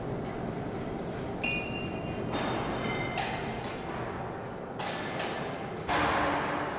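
Overhead bridge crane carrying a suspended towable aerial work platform, with a steady low running noise. A short metallic ping rings out about a second and a half in, and several metallic knocks and clanks follow, the loudest near the end.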